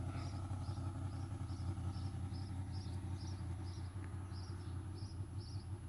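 Motorcycle engine idling steadily, with a bird chirping a short high note over and over, about two or three times a second.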